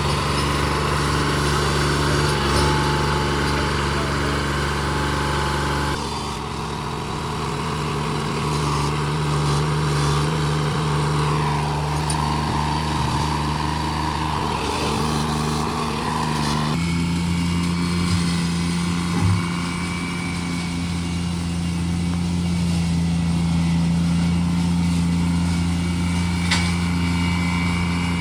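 Steiner 430 compact tractor engine running steadily, its note changing abruptly twice.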